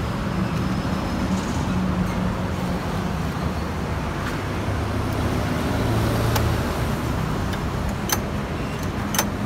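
Small petrol engine running steadily with a low hum, and two sharp clicks near the end.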